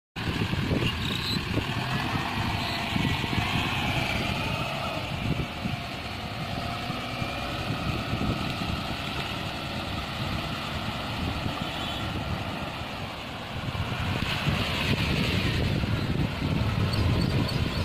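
Mahindra Thar off-roader's engine running and revving, its note rising and falling, growing louder again near the end.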